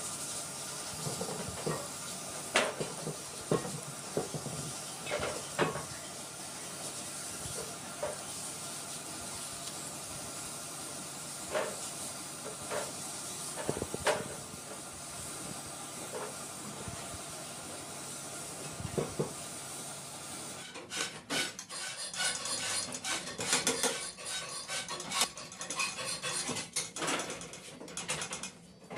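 Spray gun hissing steadily as it sprays paint onto a sewing-machine head, with scattered knocks and clinks. About twenty seconds in this gives way to rapid metallic clicking and rattling as the machine's parts are worked with a screwdriver.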